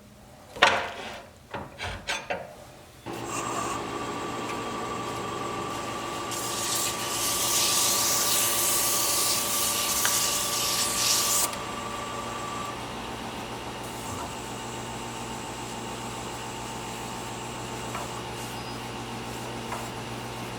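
A few wooden knocks, then a wood lathe's motor starts about 3 seconds in and runs with a steady hum. From about 6 to 11 seconds something rubs against the spinning birch handle with a loud hiss.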